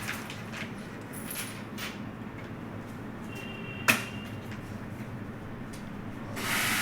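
Scattered faint clicks of computer keys being typed, with one sharper click about four seconds in, over a steady background hiss.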